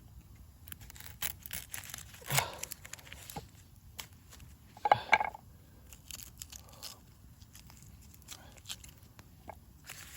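Onion being peeled by hand: the dry, papery skin tearing and crinkling in short rustles, with a few small clicks and knocks, the loudest rustle about five seconds in.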